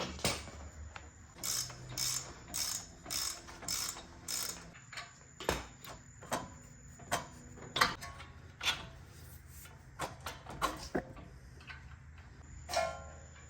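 Hand ratchet wrench clicking in a run of quick back-and-forth strokes, followed by scattered sharp metal clicks and knocks as tools and parts are handled.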